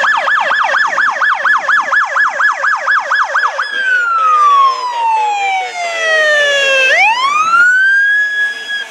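Fire department patrol truck's electronic siren on a code 3 run. It sounds a fast yelp of about four up-and-down sweeps a second. About three and a half seconds in it switches to a slow wail that falls over about three seconds and then climbs back up near the end.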